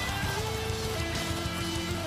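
Background music: a melody of long held notes stepping down in pitch over a steady low accompaniment.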